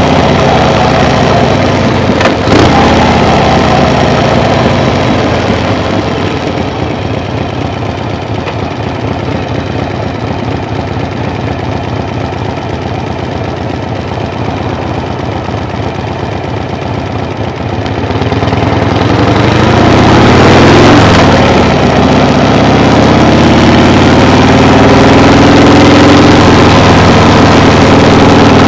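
Motor vehicle engine running steadily, with a sharp knock about two seconds in. About eighteen seconds in it grows louder, its pitch sweeping up and down for a few seconds before settling into a steady, louder note.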